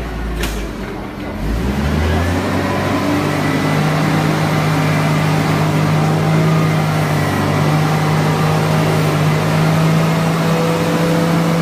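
A single sharp knock, then a motor winds up about two seconds in and runs on at a steady speed with a loud, even hum.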